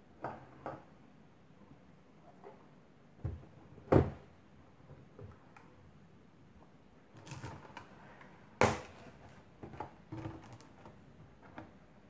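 Hard plastic laptop casing being handled: scattered clicks and knocks as the laptop is turned over on the table and its keyboard is pried loose. Two sharp knocks, about four seconds in and again just past the middle, are the loudest, followed by a run of small clicks.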